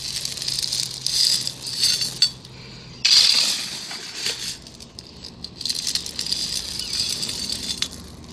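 Small gravel scooped up with a metal scoop and tipped out, pebbles scraping and clinking against each other and the metal in a series of rattling bursts, the loudest about three seconds in.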